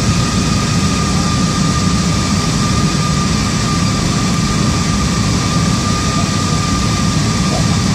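Steady cabin noise inside an Airbus A321 airliner on approach: a constant low rumble of engines and airflow with hiss, and a thin steady whine held at one pitch throughout.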